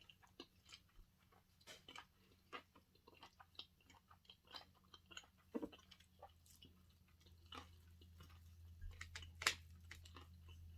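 Close-miked chewing of sushi: soft, irregular wet mouth clicks and smacks, with one sharper click about nine and a half seconds in. A faint low hum comes up from about seven and a half seconds in.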